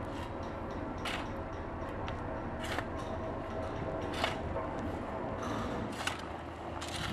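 Shovel scraping through gravelly dirt in short strokes, about six scrapes, roughly one every second or so, over a steady low hum.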